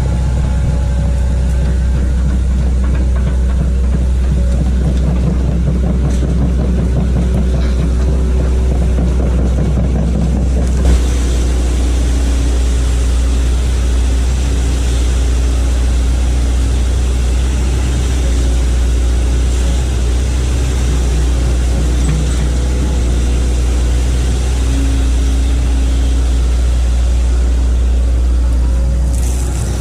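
Hitachi excavator's diesel engine running steadily, with a single short knock about eleven seconds in.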